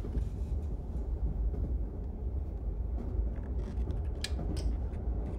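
Steady low rumble of a moving passenger train heard from inside a sleeper compartment, with a few faint soft ticks or rustles in the second half.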